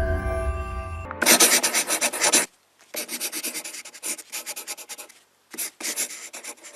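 Music fading out over about the first second, then rapid scratching or rubbing strokes in three bursts with short pauses between them.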